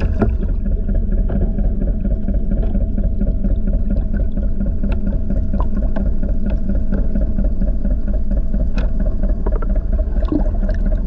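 Boat engine running steadily, a low, even hum with a few faint ticks over it.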